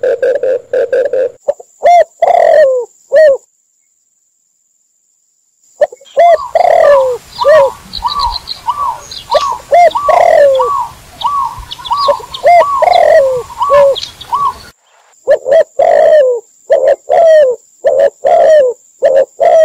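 Recorded dove calls from a mix of spotted, red collared and zebra doves, repeated cooing notes. One spell comes in fast runs of notes, and another is slower with drooping coos over a faint hiss and small high chirps. The calls break off for about two seconds early on and then resume.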